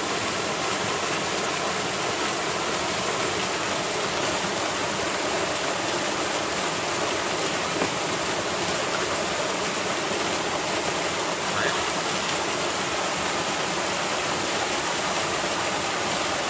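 Small waterfall splashing into a rocky pool: a steady, even rush of falling water.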